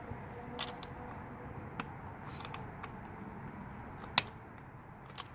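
A few scattered light clicks and taps as an Allen wrench is worked into the bolt hole of a roof-rack crossbar foot, feeling for the clamp bolt. One sharper click comes about four seconds in.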